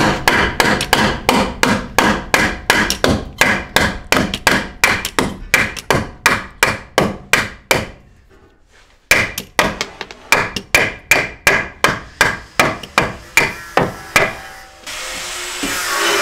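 Rapid, evenly spaced knocks of a tool striking metal, about three a second, each ringing briefly. They break off for about a second just after the middle, resume, then stop, and a steady whirring noise starts near the end.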